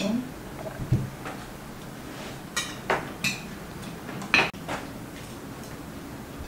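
Cutlery clinking against china plates as people eat: a handful of separate sharp clinks, the loudest about four and a half seconds in.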